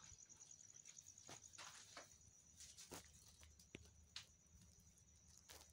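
Near silence: faint scattered clicks and a faint steady high whine, with no machine running.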